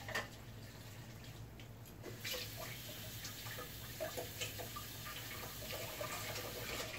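Kitchen faucet running into a sink, starting about two seconds in, with a few dishes clinking. A single knock just after the start.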